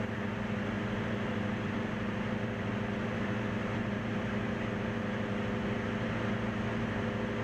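Single-engine light aircraft's piston engine and propeller running at steady power, an even drone heard from inside the cabin.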